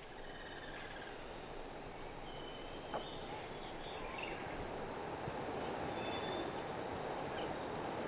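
Outdoor nature ambience: a steady hiss with a constant high-pitched tone, a few faint high chirps in the first second and a short high chirp about three and a half seconds in.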